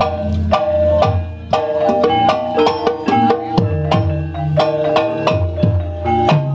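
Banyumasan ebeg accompaniment music: a gamelan-style ensemble of tuned struck percussion playing a steady melodic pattern over a low drum beat.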